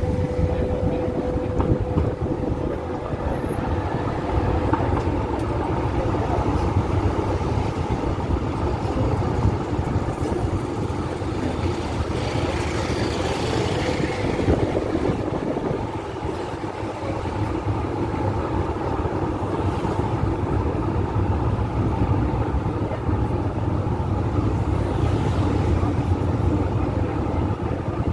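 Tram running along street track, heard from inside: a steady rumble of motors and wheels on the rails, with a thin steady tone for the first few seconds. A rushing hiss swells about halfway through and again near the end.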